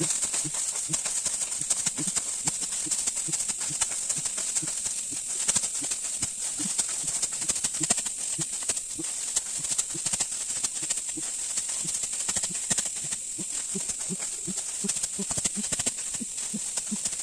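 Dry rice stalks rustling and crackling in dense, irregular bursts as the crop is handled, over a steady high-pitched hum.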